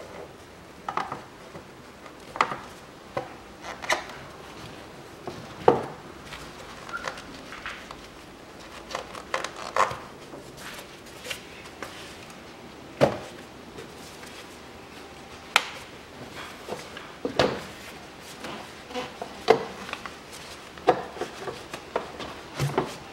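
Hard plastic air filter housing and intake ducting of a Skoda Octavia 1.2 turbo engine being unclipped and pulled off by hand: irregular clicks, knocks and rubbing of plastic on plastic, about one sharp knock every second or two.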